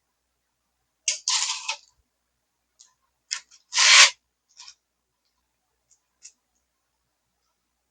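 Styrofoam insulation board being worked by hand: short scraping and crunching noises. There is one longer scrape a little after a second in and the loudest about four seconds in, with faint ticks between.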